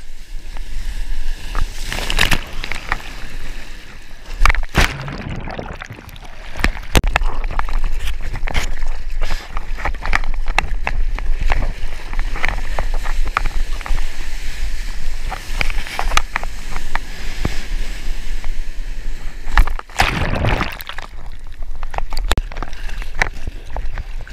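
Seawater sloshing and splashing around a surfboard as a surfer paddles by hand through small broken waves, close to the water. Irregular splashes of the paddling strokes run through it, with louder surges about two seconds in, about five seconds in, and near the end.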